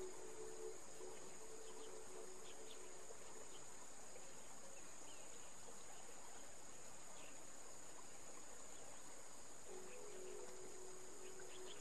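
Steady high-pitched drone of insects, with a few faint short chirps over it. Soft background music notes fade out in the first second and come back near the end.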